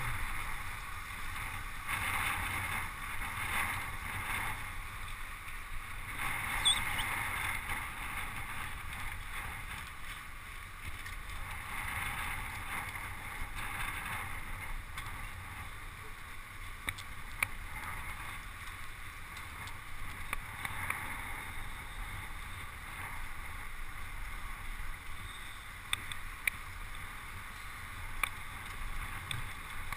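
Steady rushing of wind and road noise on a road bicycle ridden in a bunch, picked up by a camera riding with the bike, with a few short sharp clicks.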